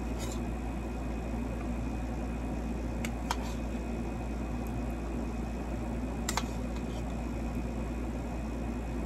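Steady low hum of background noise, with three faint clicks of a metal spoon against a bowl while eating.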